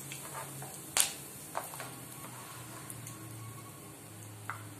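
Cumin seeds and curry leaves crackling now and then in hot oil in a kadai during a tempering, with a few sharp pops, the loudest about a second in, over a faint low hum.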